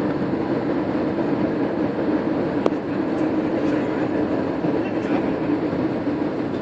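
Airliner cabin noise: a steady rumble with a low engine hum, and one sharp click about two and a half seconds in.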